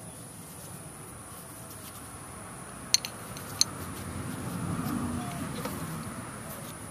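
Two sharp metallic clinks about half a second apart, about three seconds in, as steel lift-kit and axle parts are handled under a golf cart. A low rumble swells and fades in the second half.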